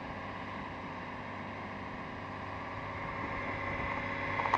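Boat under way at sea: a steady rush of water and wind with a steady hum underneath, growing louder near the end.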